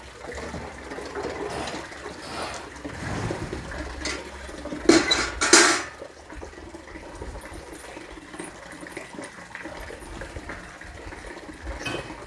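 Water being splashed and sloshed by hand, with two loud splashes close together about five seconds in.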